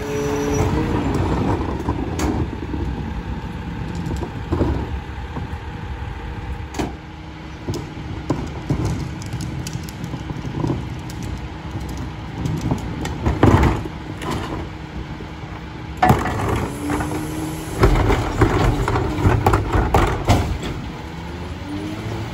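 Freightliner Econic McNeilus rear-loader garbage truck at work: its engine running steadily with scattered knocks and clanks, and a rising whine near the end.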